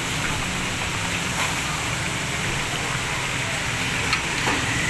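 Fish deep-frying in hot oil in large woks over gas burners: a steady sizzle, with a few sharp clinks near the end.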